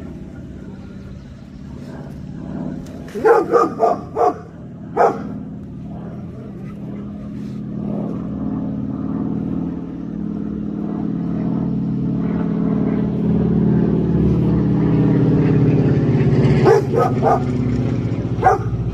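Dog barking in short quick barks, a flurry of about five a little over three seconds in, one more near five seconds, and another flurry near the end, over a steady low mechanical hum.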